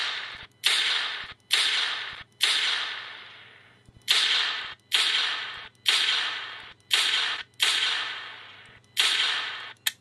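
.44 Magnum revolver gunshot sound effect from an Arduino blaster prop's MP3 player, played through its small 4-watt speakers: about ten shots, each a sharp crack with a fading tail, a little under a second apart, with a longer pause about three seconds in.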